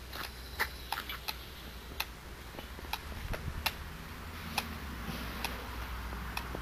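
Scattered sharp clicks at irregular intervals, one or two a second, over a steady low rumble.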